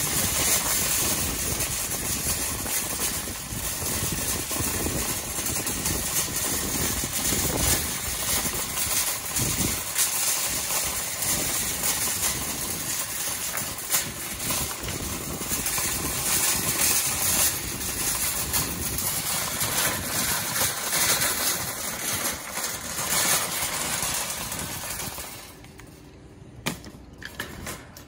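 Metal wire shopping cart rolling over rough asphalt, its wheels and basket rattling steadily. The rattle stops about three seconds before the end, leaving a few light knocks.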